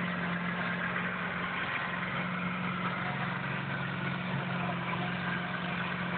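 Farm tractor's diesel engine running steadily at an even, low speed as the tractor tows a tractor-pulling sled, with no revving.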